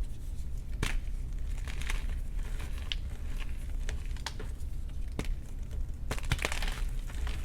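Baked gym chalk being crushed and crumbled by hand: scattered crisp crunches and cracks, with a quick flurry of them about six seconds in.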